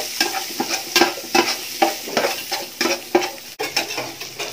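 Chopped onion, ginger and garlic sizzling in hot oil in a metal pot while a metal spatula stirs and scrapes the pan, about three strokes a second with a brief ring from the pot. The stirring stops about three and a half seconds in, leaving the frying hiss.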